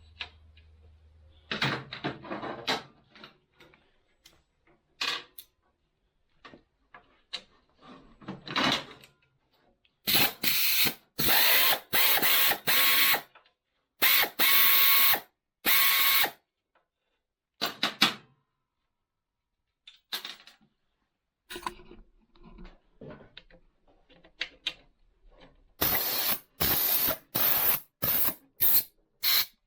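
A tool undoing fasteners in repeated short bursts of about half a second, in two runs, with lighter clicks and knocks from handling parts in between.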